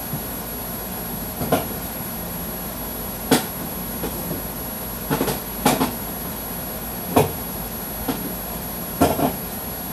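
Scattered knocks and clunks of kitchen things being handled, about seven in all and some in quick pairs, over a steady background hum.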